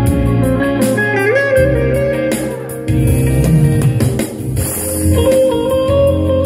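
Funky instrumental played live: an electric bağlama carries a plucked lead melody with pitch slides over a Yamaha Tyros 4 keyboard part with a steady bass line and drum beat.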